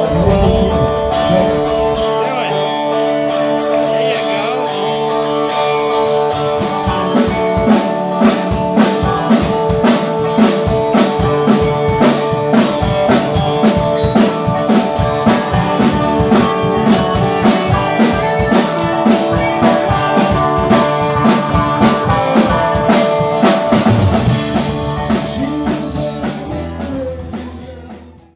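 Band music with guitar: sustained chords, joined by a steady drum beat about seven seconds in, fading out at the end.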